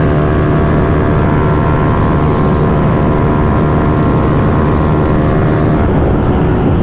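Yamaha R15 V3's single-cylinder engine through an aftermarket Akrapovic-replica exhaust, running steadily at high road speed, with wind rush over it.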